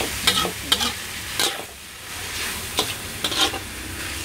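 Metal spatula scraping and clinking against a steel wok as salted squid, scallions, shallots and garlic are stir-fried in hot oil, under a steady sizzle. About six sharp, irregular clinks of the spatula on the pan, with a quieter moment about two seconds in.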